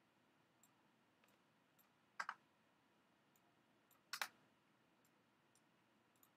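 Two sharp double clicks of a computer mouse about two seconds apart, with a few fainter clicks between, over a quiet room.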